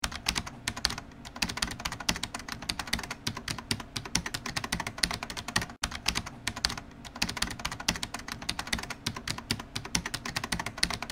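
Rapid, irregular clicking that goes on throughout, with a brief break just before six seconds in.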